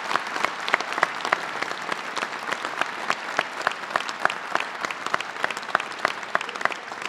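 A crowd applauding: many hands clapping steadily, thinning a little toward the end.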